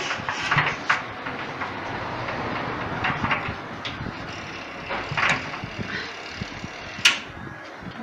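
Scattered plastic clicks and knocks as control knobs are pulled off a washing machine's panel and the casing is handled, the sharpest click about seven seconds in, over a steady background noise.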